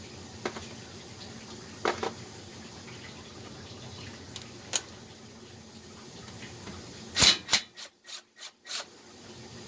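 Hand tools clicking against metal while bolts are worked loose on a small engine. A few separate sharp clicks, then a quick run of about six louder clicks near the end.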